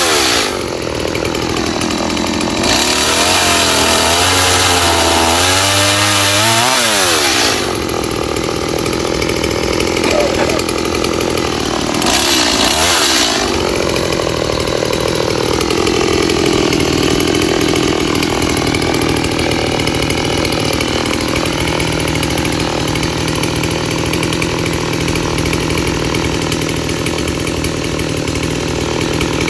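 Gas-powered chainsaw running and cutting wood. It revs hard with pitch rising and falling from about 3 to 7 seconds in, revs high again briefly around 12 seconds, then runs steadily.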